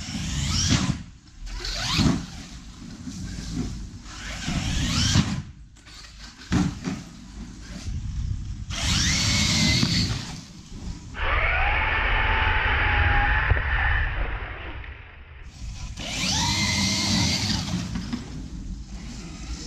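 Large-scale RC off-road truck built on Losi 5ive parts driving hard on dirt. Its motor whines up in pitch again and again as it accelerates, with a longer steady high whine around the middle.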